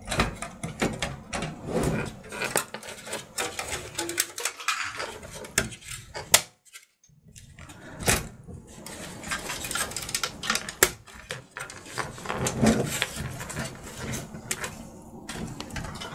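Thin sheet-metal motherboard I/O shield being pushed and worked into the computer case's back-panel opening, a tight fit: a run of irregular metallic clicks, taps and rattles, with a brief pause about six and a half seconds in.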